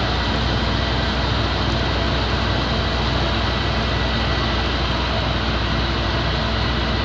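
Fire engine's engine running steadily with its aerial ladder raised, a constant drone and hiss with a faint steady high whine above it.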